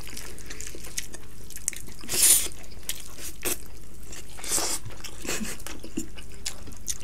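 Close-miked eating by hand: fingers squishing and mixing rice with dal and vegetables on a plate, with chewing and wet mouth clicks. Three short hissing sounds come in at about two, three and a half and four and a half seconds.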